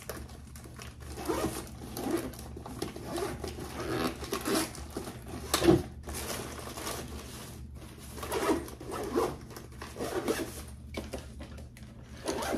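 Zippers on soft insulated lunch bags being pulled open and closed, among rustling and light knocks as items are handled in the bags. A sharp click about halfway through is the loudest sound.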